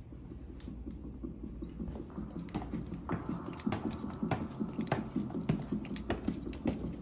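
Footsteps going down wooden stairs: irregular light knocks and taps, getting busier about two to three seconds in.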